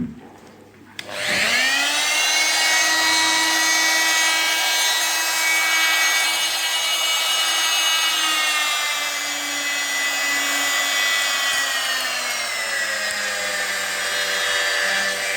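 Erbauer EMT300 300-watt oscillating multi-tool running with no load: a click, then the motor winds up about a second in to a steady whine. Its pitch steps down twice in the second half as the variable speed is turned down. Quite quiet for a power tool.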